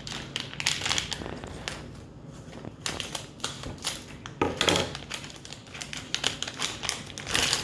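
Small plastic Lego pieces being handled, giving quick, irregular clicks and clatters.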